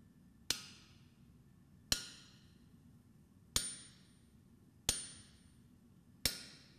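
Blacksmith's hammer striking steel on an anvil in forging an axe: five slow, evenly paced blows, each ringing out and fading.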